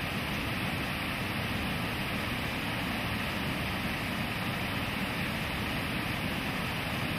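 Whitewater river rapids rushing in a steady, even roar.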